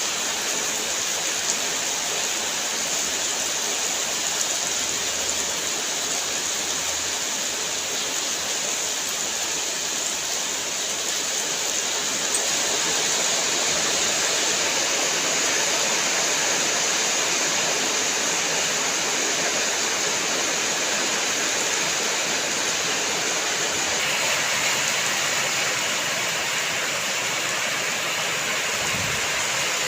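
Steady rain falling, an even hiss of water with no change in level.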